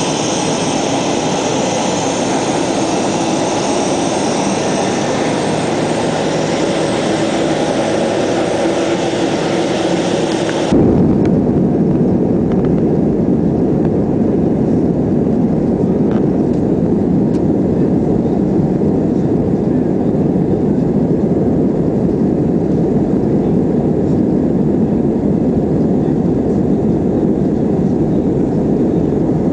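Jet airliner engines running, heard in the open on the apron as a loud hissing whine. About eleven seconds in it cuts abruptly to inside the cabin, where the noise becomes a steady, muffled low rumble of the engines and the aircraft rolling along the ground.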